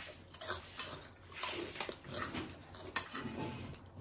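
Metal forks clinking and scraping on ceramic plates during a meal, a few sharp clinks among softer scrapes, with quiet chewing sounds in between.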